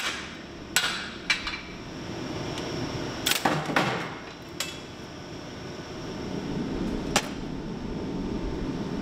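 Hammer blows on a hot carving axe blade during forging: a handful of separate sharp metal-on-metal strikes, with a quick cluster of several about three and a half seconds in and a last single strike near the end, over a steady low hum.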